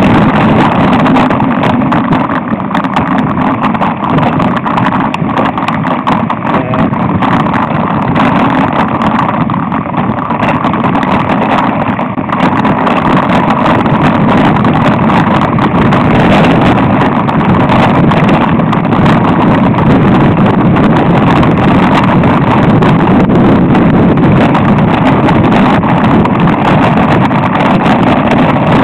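Loud wind buffeting a mountain-bike camera's microphone at riding speed, mixed with continuous rattling and knocking as the bike runs over a rough dirt trail.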